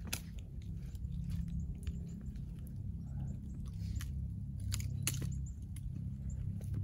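Wind buffeting the microphone as a steady low rumble, with scattered sharp clicks and crunching rustles over it.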